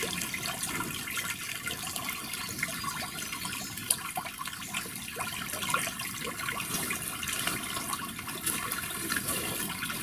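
Water of a small shallow creek running over a shale and rock bed: a steady babbling with many small splashes and gurgles.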